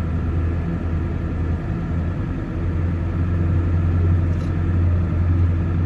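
4x4 truck's engine running as the truck drives across a lawn, heard from inside the cab: a steady low drone that grows a little louder about two and a half seconds in.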